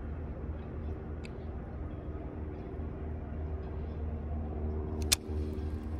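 A steady low engine hum with a sharp click about five seconds in.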